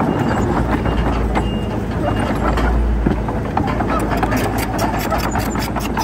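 Heavy diesel earthmoving machinery running, with a truck's reversing alarm beeping about twice a second until about two seconds in. From about four seconds in, a rapid run of clanks and clicks joins the engine noise.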